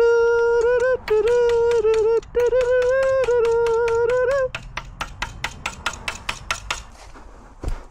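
A voice singing a wordless tune in long held, gliding notes for the first half, then a ratchet wrench clicking quickly, about five clicks a second, for a couple of seconds as it is worked on a bolt.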